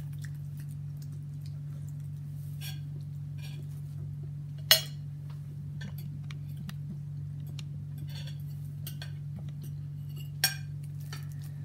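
Metal cutlery clinking and tapping on plates and food containers as people serve themselves and eat, with two sharp, louder clinks, one near the middle and one near the end. A steady low hum runs underneath.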